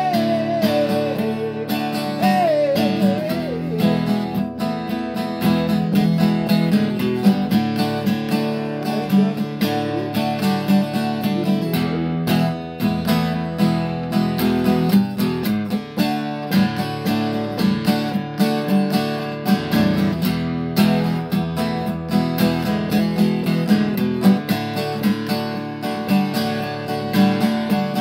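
Acoustic guitar strummed in a steady, rhythmic chord pattern.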